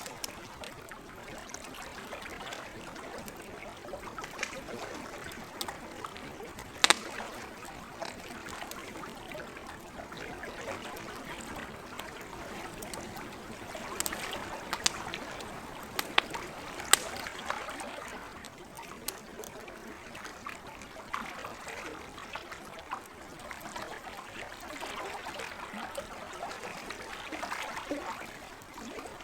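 Lake water lapping and trickling steadily, with a campfire crackling: scattered sharp pops, the loudest about a quarter of the way in and a few more close together around the middle.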